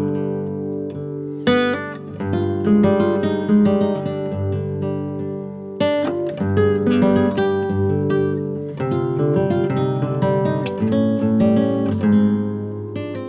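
Background music: acoustic guitar played with plucked notes and strummed chords.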